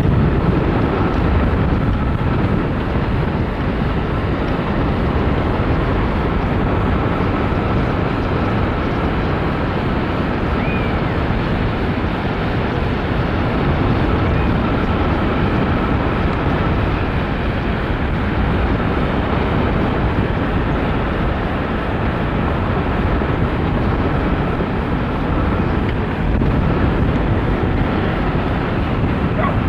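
Wind rushing over a microphone on a hang glider in flight: a steady, loud, deep rush of air, with a faint steady high tone under it.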